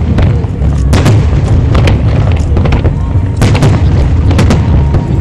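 Aerial firework shells bursting in rapid succession: deep booms that run into one another, with sharp cracks several times a second.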